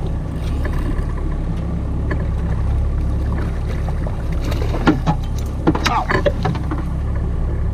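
Small fishing boat's engine running at trolling speed, a steady low drone under wind and water noise. A cluster of short sharp sounds comes about five to six seconds in.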